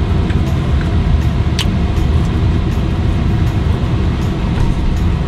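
Steady low rumble of a running car, heard from inside its cabin, with a few small clicks from chewing and handling food; the sharpest click comes about a second and a half in.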